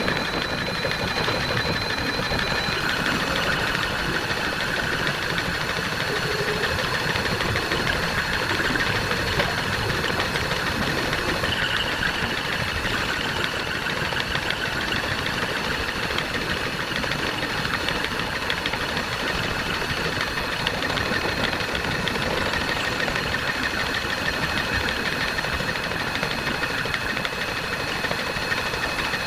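Electric hand drill running steadily with a constant high whine, driving a homemade tool attachment.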